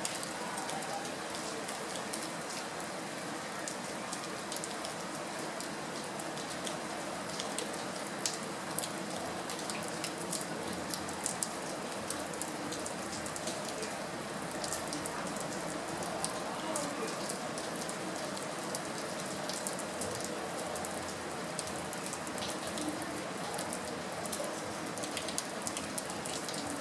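Small hailstones falling during a hailstorm: a steady dense hiss with many sharp ticks of stones striking.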